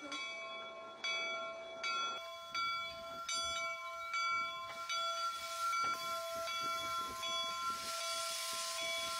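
Steam locomotive bell ringing in a steady rhythm, struck about once every second. Steam hiss rises near the end.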